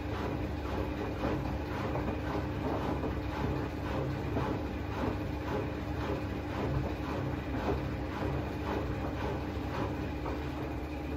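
Front-loading washing machine running through its wash cycle: a steady hum with a regular light clatter about twice a second.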